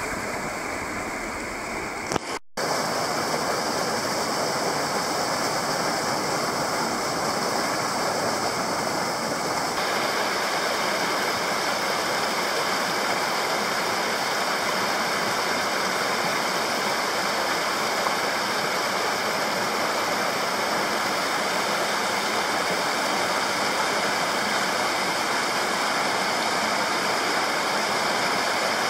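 Small mountain headwater stream rushing and splashing over boulders and little cascades, a steady rush of water, with a split-second break in the sound about two seconds in.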